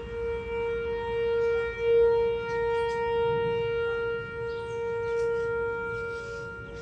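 Whelen 4004 electronic tornado siren sounding a steady, unwavering tone during its test, swelling and fading in loudness. A second, slightly higher tone joins in near the end.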